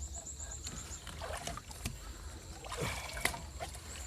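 Water splashing and sloshing as someone moves through the water handling a fishing net, with scattered knocks. A short run of rapid high chirps sounds in the first second.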